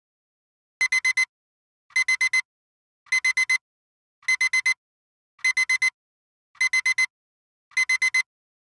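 Digital alarm-clock beeping, starting about a second in: groups of four quick high-pitched beeps repeating a little faster than once a second, signalling that the 7-minute countdown has run out.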